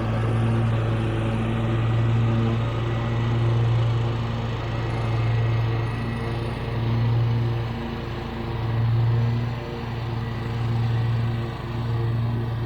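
Engine of a ride-on lawn machine running steadily at high throttle, its sound swelling and easing every second or two as it works through tall grass.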